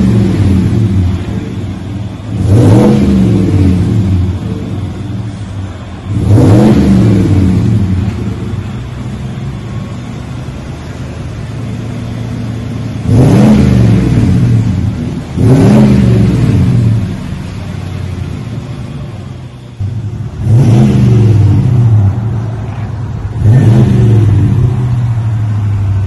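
2020 GMC Sierra's 5.3-litre V8 blipped repeatedly through a cat-back dual exhaust with a Magnaflow muffler and side-exit tips: about six short revs, each rising and falling back to a steady idle. The exhaust note is a growl.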